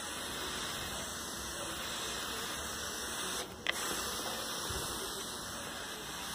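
Steady low hiss of background noise, with a brief dropout and a single click about three and a half seconds in.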